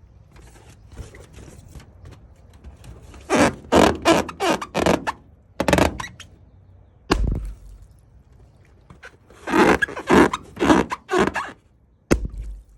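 Balloons being popped: a run of sharp pops and thuds in two bursts, with single heavier pops between and near the end.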